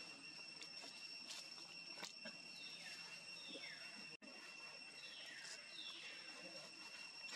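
Faint outdoor animal ambience: a steady high insect drone with several short bird calls sliding down in pitch, and a few light clicks.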